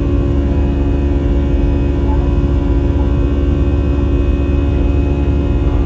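Steady in-flight cabin noise of an Airbus A320: a low rumble of airflow and engines with a constant layered hum on top.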